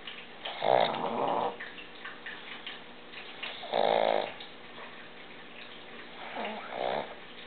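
A sleeping pug snoring: three snores about three seconds apart, the last one broken into two short parts.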